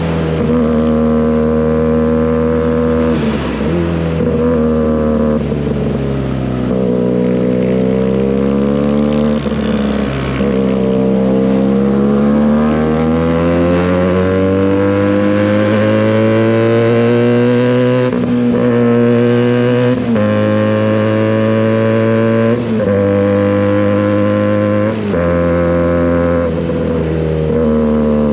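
Benelli 302S 300 cc parallel-twin motorcycle engine through an SC Project exhaust, ridden: the exhaust note rises and falls with the throttle, with short breaks at gear changes about a dozen times.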